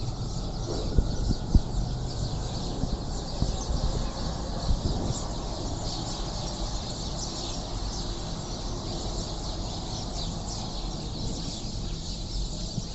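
A flock of small birds chirping continuously in many overlapping short high calls, over a steady low rumble. A few sharp knocks sound in the first two seconds.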